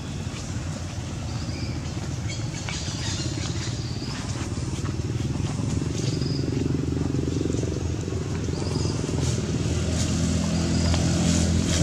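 An engine running steadily, growing louder near the end.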